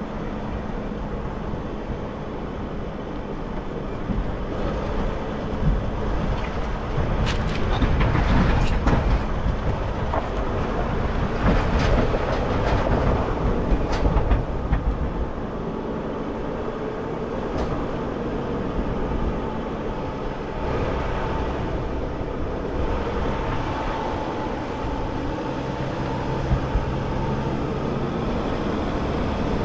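Sprinter 4x4 van driving slowly over a rough dirt and rock trail: the engine runs steadily under load while the tyres rumble and crunch over the ground. Bursts of knocks and rattles come between about seven and fourteen seconds in.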